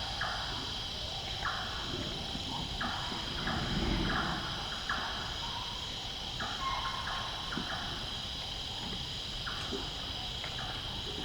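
A steady chorus of night insects, with repeated short buzzes starting and stopping every second or so. Under it a greater one-horned rhinoceros at a clay lick makes a low sound about four seconds in and a few soft pops as it chews and digs into the clay.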